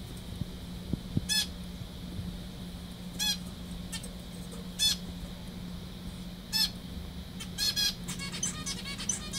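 Zebra finch giving short nasal calls, one every second or two, then a quicker run of calls near the end. A steady low hum runs underneath.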